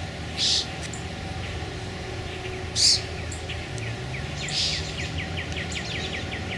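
Songbirds calling: three short, harsh, high chirps about two seconds apart, the loudest near the middle, and a rapid run of repeated notes, about five a second, through the second half, over a low steady hum.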